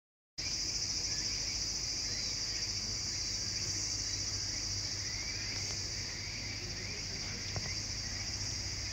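Steady, high-pitched chorus of crickets or similar singing insects, cutting in just after the start, over a low steady hum.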